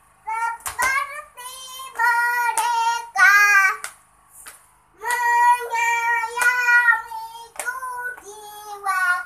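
A young girl singing in a high voice, holding long notes in short phrases with brief pauses between them. A single sharp knock sounds under the singing near the start.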